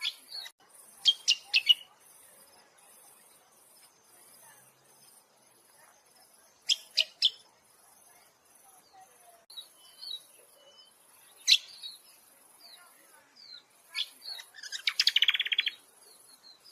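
Small songbirds calling: sharp high chirps in quick groups of two or three, softer scattered chirps in between, and a fast chattering trill near the end.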